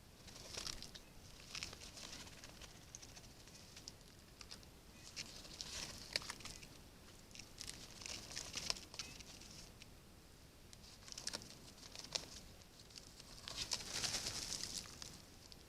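Birds feeding on a feeder: irregular bursts of scratchy rustling and sharp taps of pecking, coming every second or two, with the loudest and longest burst near the end.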